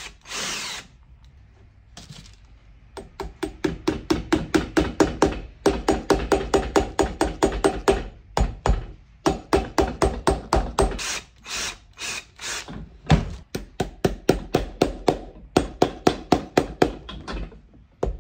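A cordless drill runs for under a second at the start, boring a pilot hole in the leather sole. Then a hammer drives the pins of iron cleats into the sole of a boot held on an iron last, in quick runs of about four or five blows a second with a ringing tone under them and short pauses between runs.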